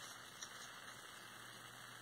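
Near silence with steady hiss, and one faint click about half a second in from a retractable charging-cable reel being handled as its cord is drawn out.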